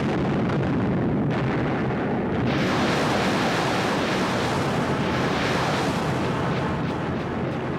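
A loud, continuous rumbling roar of noise with no separate blasts, which grows brighter and hissier about two and a half seconds in.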